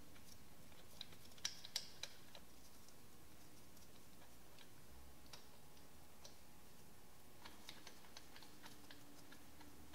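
Faint, scattered light clicks and taps of a hand tool working on the fasteners, a few about a second in and more near the end, over a faint steady hum.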